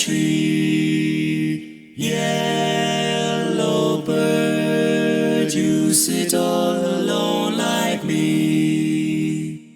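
Barbershop-style a cappella voices singing in close harmony, holding sustained chords that change about every two seconds, with a brief break near two seconds in.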